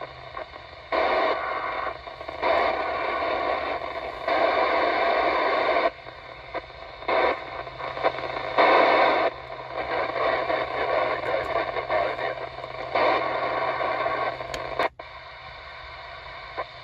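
Yaesu FT-8900 mobile radio receiving the International Space Station's FM repeater downlink: bursts of hissing static that cut in and out abruptly many times as the squelch opens and closes on a weak signal.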